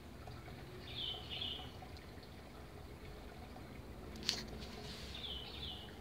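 GMC FC06-50 mini ceiling fan running quietly, a low steady hum and air rush. A bird chirps twice, a quick double note about a second in and again near the end, and there is one sharp click about four seconds in.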